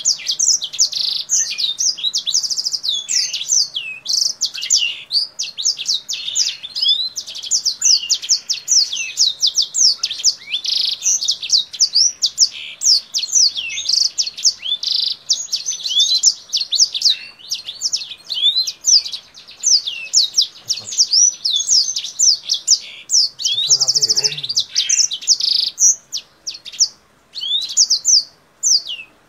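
Kingthroat, a caged finch, singing nonstop: a fast, rambling stream of high chirps and trills that the keeper likens to a black-throated canary's song. A brief dull knock comes about three-quarters of the way through.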